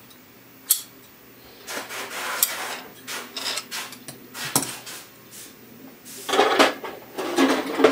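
Hands working the metal binding folder and polyester tape on a carpet binding machine, with the machine stopped: irregular metal clicks and rattles with rubbing of the tape. A sharp click comes about a second in, and the handling gets louder near the end.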